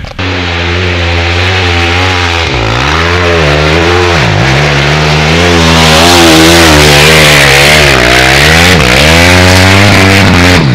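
Yamaha WR 250 dirt bike engine revving hard while climbing a hill, with its pitch dipping and recovering twice in the first few seconds. It is loudest as the bike passes close by about six seconds in, then keeps running at high revs.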